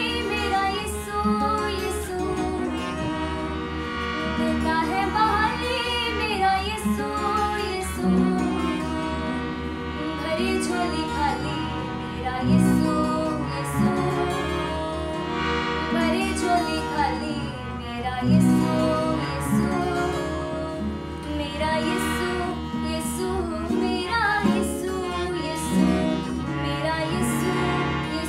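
A girl singing a devotional worship song, accompanied by a harmonium holding steady chords and a strummed acoustic guitar.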